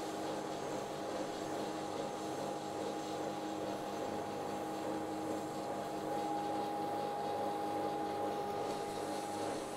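Rikon 25-010H planer-thicknesser running with a steady whine while its cutterhead planes a board being fed through in thicknessing mode. The sound grows a little louder during the second half and eases off near the end.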